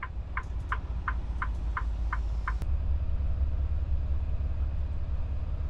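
Steady low rumble of a semi-truck heard from inside the cab, with an electronic ticking about three times a second that stops about two and a half seconds in, followed by a single click.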